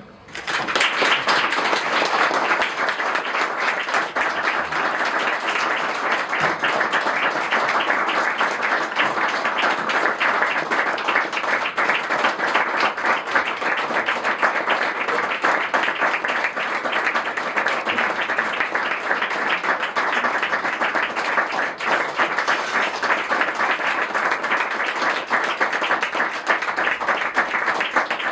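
An audience applauding: a dense, steady round of clapping that starts suddenly and goes on without a break.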